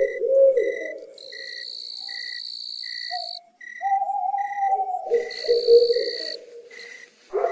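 Night-time jungle ambience, likely an added sound effect: crickets chirping with a short even pulse about two and a half times a second, a high trill twice, and a lower wavering animal call.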